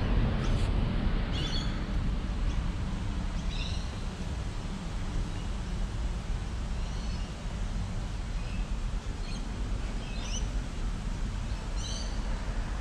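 Small birds chirping: short, high, downward-sweeping chirps every second or two, over a steady low rumble.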